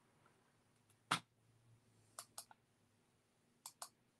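Clicking at a computer: one sharp click about a second in, then lighter clicks in quick pairs, faint against a quiet room.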